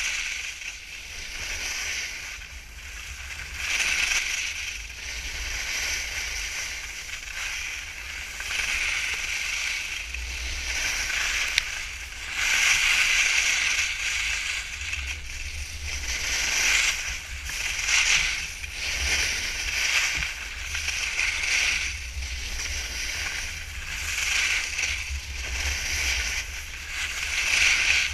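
Skis scraping and carving across packed snow, the hiss swelling and fading with each turn every second or two, over a steady low rumble of wind on the microphone.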